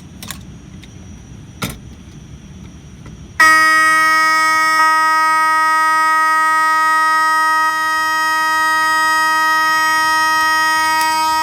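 Fire alarm horn sounding on continuous coding, a loud steady buzzy tone that comes on suddenly a few seconds in and holds, after a couple of faint clicks of a screwdriver on the pull station.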